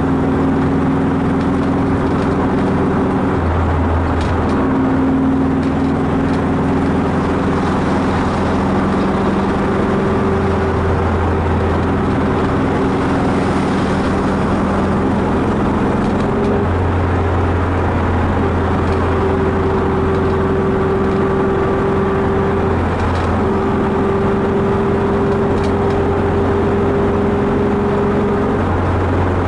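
Car driving at highway speed, heard from inside the cabin: a steady engine hum over tyre and wind noise.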